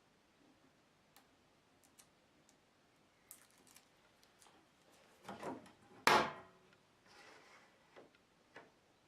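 Hand-work handling sounds: scattered light clicks and taps, a short scrape about five seconds in, and a sharp knock with a brief ring just after six seconds.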